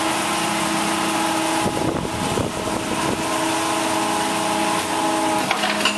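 Steady mechanical hum of a running Schmid fineblanking press, several even tones over a noisy background. About two seconds in a short low rumble passes through, and a sharp click comes near the end.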